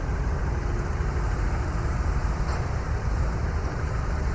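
Steady low rumble of motor noise, even and unbroken.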